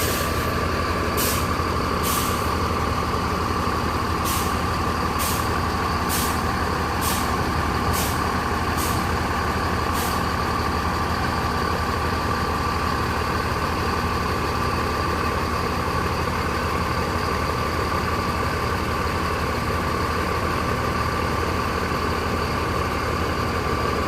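Bus diesel engine idling steadily, with a thin steady whine over it. During the first ten seconds, short sharp hisses of air from the air brakes come about once a second, as the brakes are applied and released in a brake test, then stop.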